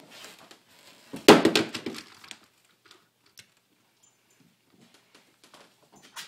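Miniature Schnauzer puppy playing, with a burst of scuffling and clattering about a second in, then a few faint scattered clicks.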